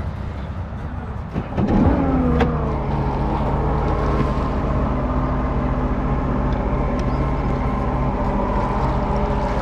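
Motorboat engine running at low, steady speed, with a brief surge about two seconds in whose pitch falls before it settles back to a steady hum.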